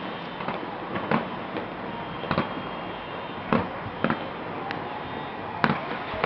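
Aerial firework shells bursting: sharp bangs at irregular intervals, roughly one a second, the loudest near the end, over a steady hiss.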